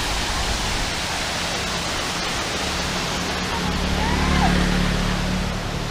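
Steady rushing roar of a waterfall's falling water.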